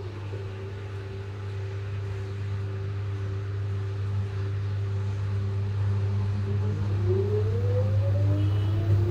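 LG front-load washing machine in its spin cycle: the drum motor whines at a steady pitch over a low hum, then the whine rises from about seven seconds in as the drum speeds up, growing slowly louder.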